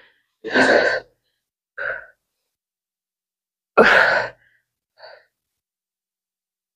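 A person breathing hard with exertion during a workout: two loud, forceful exhales about three seconds apart, each followed by a softer short breath.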